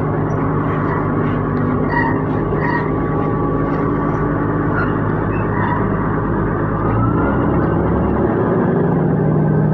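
Diesel railcar engine pulling away from a standstill, heard from inside the passenger cabin as a steady low drone. A faint rising whine comes about six seconds in, and the engine note changes around seven to eight seconds as the train gathers speed.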